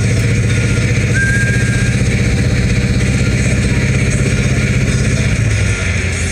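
Car engine running steadily while driving, its note dropping and quietening about five and a half seconds in as the throttle is eased off.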